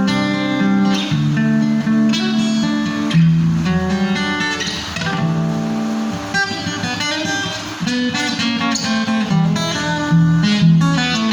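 Acoustic guitar being played, a run of picked notes and strummed chords that change every fraction of a second to a second.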